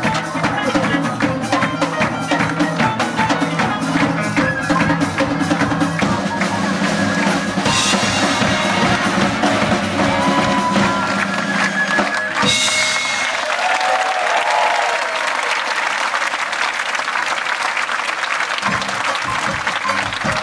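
Live circus band playing rhythmic music with a drum kit beating steadily. About twelve seconds in, after a sharp hit, the low end of the music drops away and audience applause takes over.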